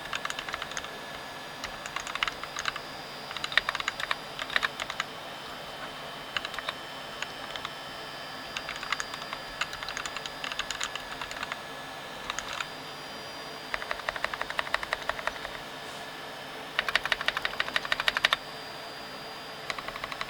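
Typing on a home-built mechanical keyboard: bursts of rapid key clicks separated by short pauses, with the densest, fastest run a few seconds before the end.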